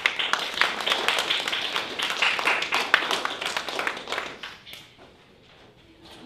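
A small audience applauding, a dense patter of many hands clapping that starts suddenly, runs for about four seconds and then dies away.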